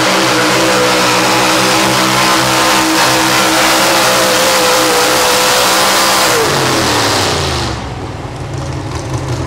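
Pro stock four-wheel-drive pulling truck's engine held at steady high revs under full load while it drags the sled. About six seconds in, the revs fall away as the pull ends, and the engine settles to an idle.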